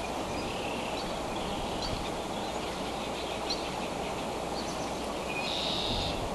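Steady outdoor background noise with a low rumble, and faint, short high bird chirps scattered through it; a brief held high call comes about five and a half seconds in.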